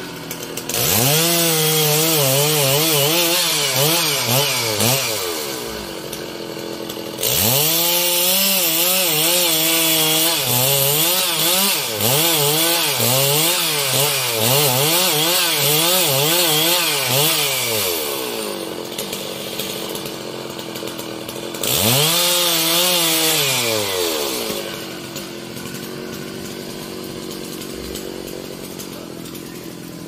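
Large two-stroke chainsaw run up to full throttle three times, the middle run longest, its engine pitch wavering as the chain cuts into wood. Between runs the pitch falls away and the saw drops back to a low idle.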